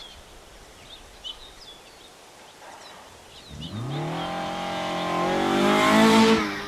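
A car engine comes in about three and a half seconds in and accelerates, its note rising and growing louder to a peak near the end. Before it, birds chirp faintly.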